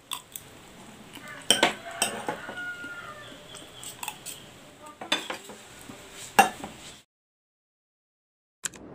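Spoon and fork clinking and scraping against ceramic plates as a meal begins, with several sharp clinks. The sound cuts off abruptly about seven seconds in, and a click comes just before the end.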